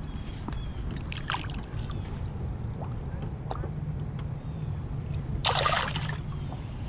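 Water sloshing as a northern pike is lowered by hand into a lake and released, then a short loud splash about five and a half seconds in as the fish kicks away, over a steady low hum.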